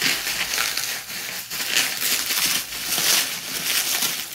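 Toy packaging being crumpled and crinkled by hand while a figure is unwrapped from it, a steady crackling rustle.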